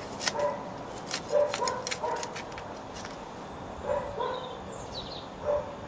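A dog barks in short, repeated barks, about every second or so. A garden trowel scrapes and clicks into soil during the first two seconds.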